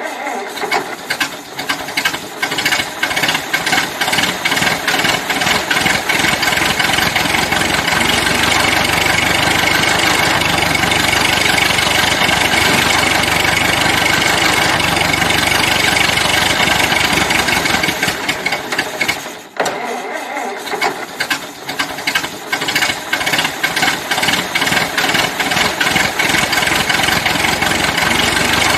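Old car engine starting: irregular firing that settles into steady running. About two-thirds of the way through it breaks off briefly, then starts again with uneven firing that settles once more.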